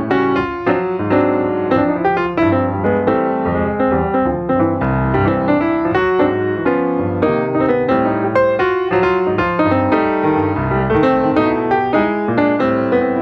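Piano music, a busy piece with many quick notes.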